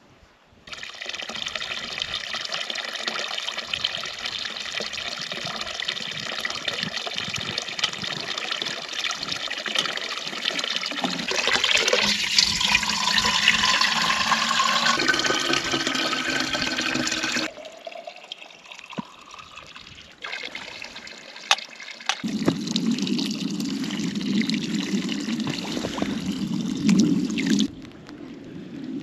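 Water running from a spring fountain's pipe spout into a metal teapot. The filling note rises as the pot fills, then the flow cuts off suddenly. A few seconds later a second, deeper stretch of running water follows near the end.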